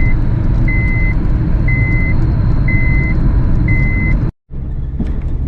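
Car driving, its engine and road noise rumbling inside the cabin, with a high electronic warning beep repeating about once a second, five times. All sound cuts out for a moment near the end.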